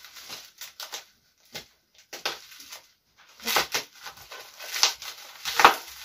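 Plastic packaging bag crinkling and rustling as it is cut and torn open by hand, in short irregular crackles. It goes almost quiet about two to three seconds in, then grows denser and louder towards the end.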